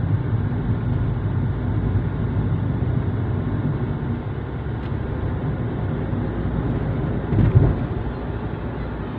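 Steady road and engine rumble inside the cabin of a moving car. There is a brief, louder low bump near the end.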